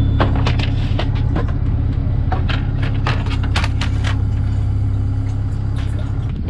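An engine running steadily, with many irregular clicks and knocks over it.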